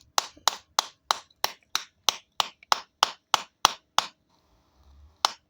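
Rapid, even taps on a geode stone, about three a second, working it slowly open. The tapping stops for about a second near the four-second mark, then starts again.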